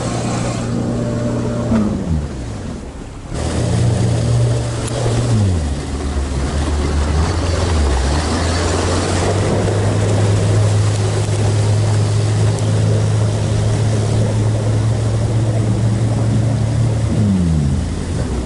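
SHERP amphibious ATV's diesel engine working hard as the vehicle tries to climb out of a river onto the bank, its pitch dropping twice early on, holding steady for a long stretch, then swinging up and down near the end, over a wash of churning water.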